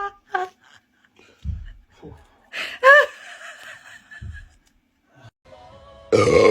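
Men burping: short low belches about a second and a half in and again about four seconds in, and a louder belch starting near the end. Between them, about three seconds in, comes the loudest sound, a short high-pitched vocal sound that rises and falls.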